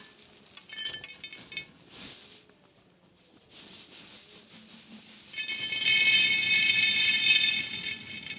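Sunflower seeds rattling against a container, in a few short rattles and then one long, loud rattle a little past halfway.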